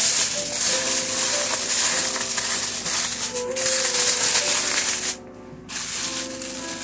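Aluminium foil crinkling and crackling as it is crumpled and pressed by hand around a baking dish, breaking off for a moment about five seconds in. Music plays underneath.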